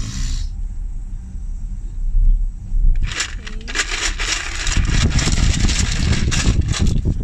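Low, steady road rumble inside a moving car's cabin, joined about three seconds in by dense crackling that runs on to the end.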